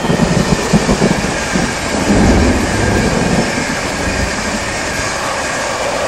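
Passenger train passing at speed, with irregular wheel knocks over the rails and a steady rushing noise; a tone starts falling in pitch near the end as the end of the train goes by.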